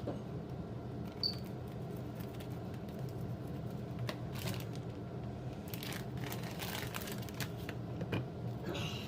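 Scattered light clicks and rustles of kitchen handling over a steady low hum, busiest about four seconds in and again around six to seven seconds.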